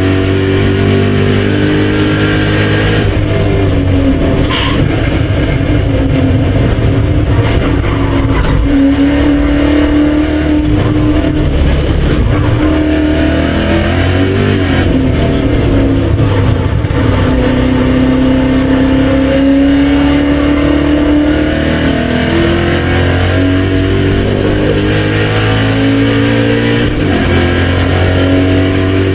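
BMW M5 E39's 4.9-litre V8 running hard on a racetrack, its pitch climbing and falling again and again as the car accelerates, shifts and slows for corners.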